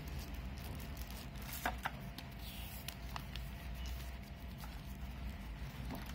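Plastic packaging crinkling and rustling as hands unwrap it, with scattered sharp crackles, over a low steady hum.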